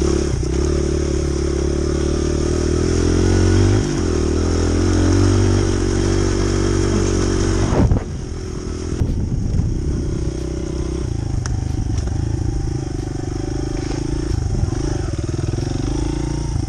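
Honda CRF100F's small single-cylinder four-stroke engine running under load on a dirt bike. The revs climb, with a brief dip about four seconds in, then drop off sharply about halfway through as the throttle is shut. The engine then runs on at lower, steadier revs.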